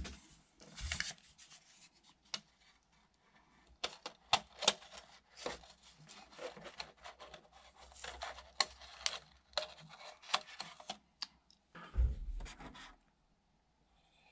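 A slip of paper being slid behind a speedometer needle and handled against the plastic instrument cluster: a run of small scratches, rustles and clicks, irregular and short. A low thump comes about twelve seconds in.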